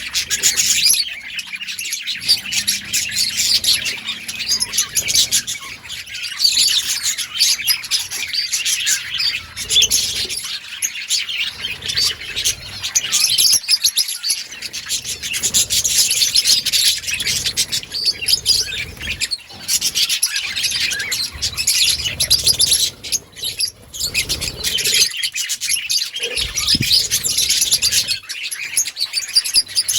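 Many budgerigars chirping and chattering together at once, a dense, continuous flock chatter.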